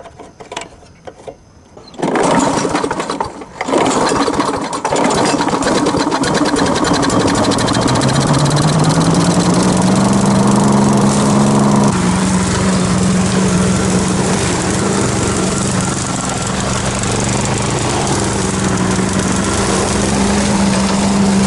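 Gasoline push lawn mower pull-started about two seconds in, catching and running. Its engine speeds up a few seconds later and then settles into a steady run.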